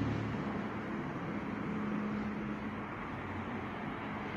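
Steady street traffic noise with a faint, steady low engine hum. A louder passing vehicle fades away during the first second.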